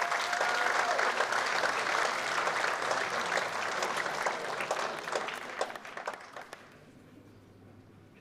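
Audience applauding a player's introduction: steady clapping that thins to a few last claps and dies away about six or seven seconds in.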